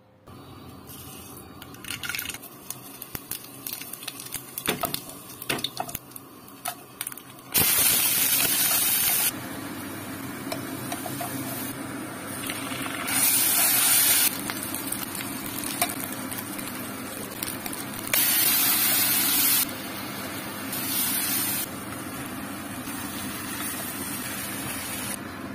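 Metal and wooden utensils clicking and clattering against a steel cooking pot for several seconds. Then onions and spice paste frying in oil, with a steady sizzle that surges loudly four times for a second or so each.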